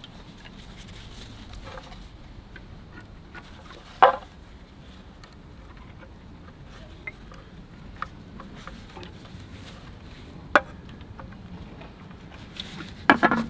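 Scattered light clicks and taps as the Rolls-Royce fuel filler flap and its hinge are handled and oiled, with two sharper clicks, one about four seconds in and one later on, over a faint steady hum.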